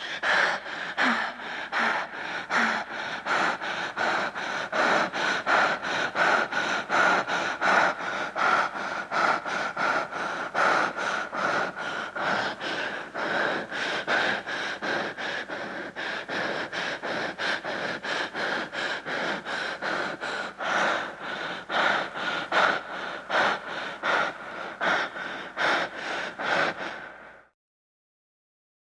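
Heavy, rapid breathing: a person panting in and out in a quick, even rhythm, about two breaths a second. It stops abruptly near the end.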